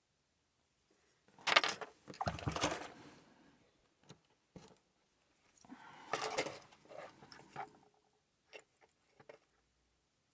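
Small metal lockpicking tools and a tiny padlock jangling as they are handled, in two bursts of rattling, followed by a few light clicks.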